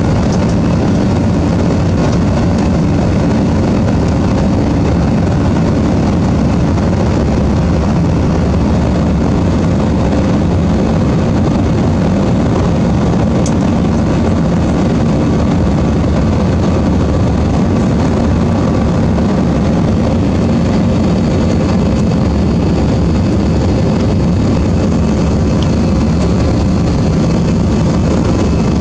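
Airbus A321 jet engines and airflow heard inside the cabin from a window seat over the wing, as the airliner climbs after takeoff. A loud, steady, even rumble with a faint hum on top, unchanging throughout.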